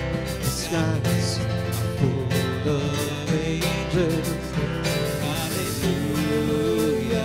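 Live church worship band playing a song: strummed acoustic guitar over a steady bass, with regular drum hits and a singing voice.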